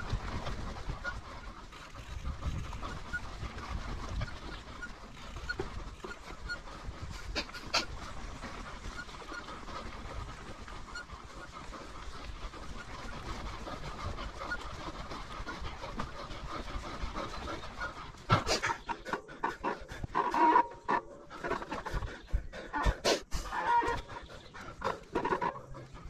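Mountain bike riding along a dirt forest trail: tyre and drivetrain noise with low wind rumble on the camera. About two-thirds of the way in, louder irregular bursts begin, the rider panting hard.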